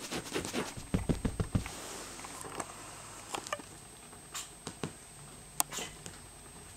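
Kitten's paws thumping and pattering on an upholstered sofa as it pounces and scrambles in play. A quick run of soft thumps fills the first second and a half, then scattered light taps and clicks follow.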